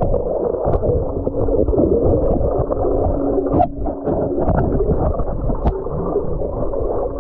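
Muffled underwater sound of water churning and bubbling around a submerged camera, with a few short knocks and a low steady hum from about a second in until about three and a half seconds.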